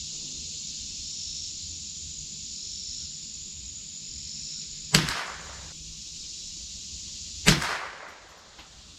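Two shots from a Marlin Model 60 semi-automatic .22 rifle, about two and a half seconds apart, each a sharp crack with a brief echo.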